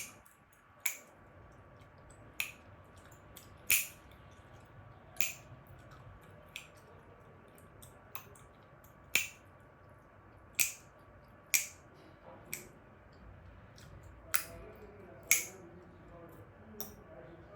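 Chewing gum being snapped and cracked in the mouth: a run of sharp, crisp pops, about one every second or so, some louder than others.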